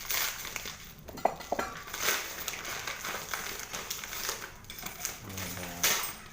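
Metal exhaust parts clinking and plastic packaging rustling as a motorcycle exhaust kit is unpacked by hand, with several sharp clicks.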